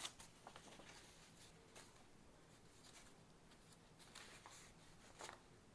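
Near silence with a few faint, brief rustles of paper sheets being handled and laid down, the clearest a little after five seconds in.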